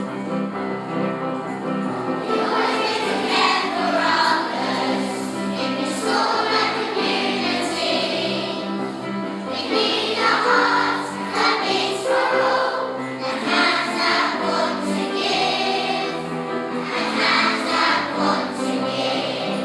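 A song playing, with a group of voices singing over an instrumental backing.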